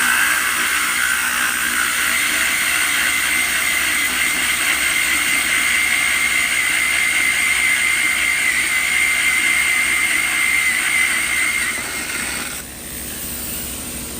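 Power drill boring through stone, a loud steady high whine that cuts out about twelve and a half seconds in, leaving a quieter steady hum.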